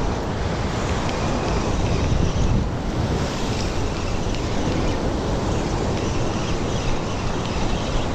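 Sea surf breaking and washing over shoreline rocks, a steady rushing with wind buffeting the microphone.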